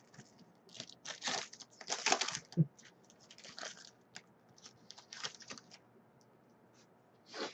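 Foil wrapper of a football trading-card pack crinkling and tearing as it is opened by hand, in short irregular bursts with brief pauses between them.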